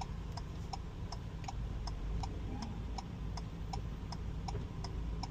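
A car's turn-signal indicator ticking steadily, a little under three clicks a second, over the low hum of the cab's idling engine.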